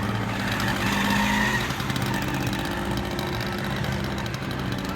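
Vespa scooter engine running steadily at low revs, with a brief higher-pitched sound about a second in.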